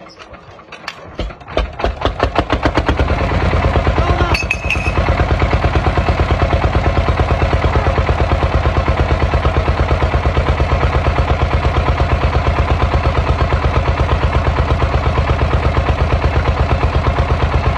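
Small tractor's diesel engine starting: a few slow, uneven thumps that quicken over the first few seconds, then a steady, fast, regular knocking run, its exhaust blowing into a balloon tied over the stack.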